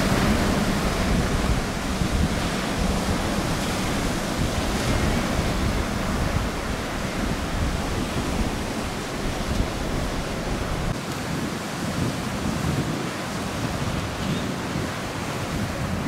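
Rough, wind-driven surf breaking and washing over rocks and sand, with wind buffeting the microphone as a steady low rumble.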